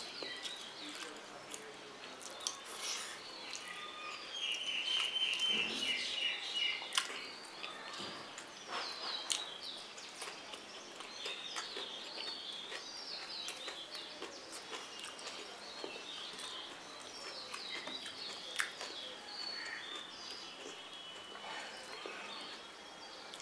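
Small birds chirping and trilling in the background, with a buzzy trill about four to six seconds in, over scattered small clicks and smacks of someone eating.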